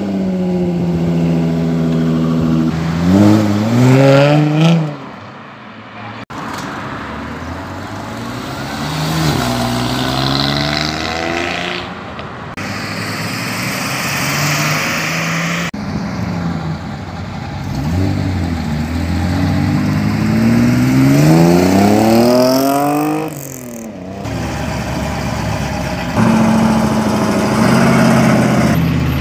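Sports and custom car engines revving and accelerating away one after another, the engine note rising in pitch each time. First a Jaguar F-Type idles and then revs up. Later a red Datsun Z coupe and a silver Chevelle pull away.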